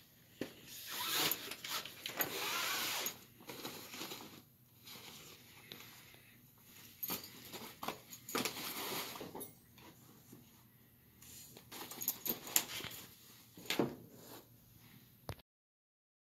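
Nylon shotgun scabbard being handled: fabric rustling and swishing in several stretches, with light clicks and jingles from the sling's metal clips. The sound cuts off suddenly near the end.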